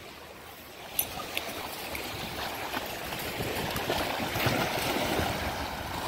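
Small waves washing up on a sandy beach, a steady rushing wash that grows gradually louder, with a few faint clicks.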